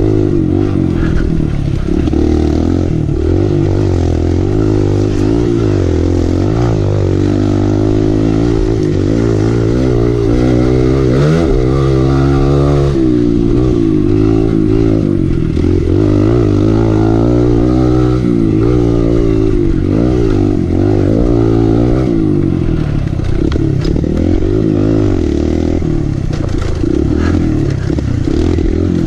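Kawasaki KLX 140L's single-cylinder four-stroke engine being ridden hard off-road, its pitch climbing and falling again and again as the throttle is opened and closed.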